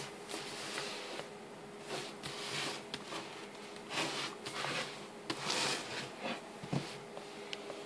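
A hand handling a white cardboard iPad box on a wooden desk, sliding it and turning it over: a run of short scrapes and rustles with a few light taps.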